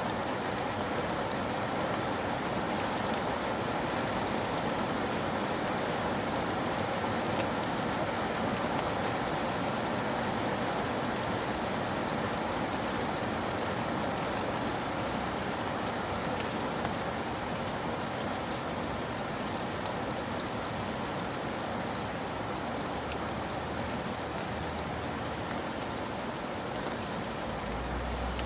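Steady rain falling, with many small drops pattering on a surface and an even hiss.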